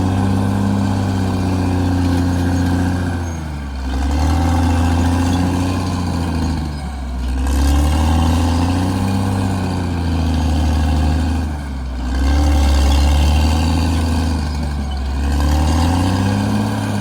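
CAT D6R XL bulldozer's diesel engine running under heavy load, its pitch and loudness dipping and recovering four times, about every three to four seconds, as the machine works.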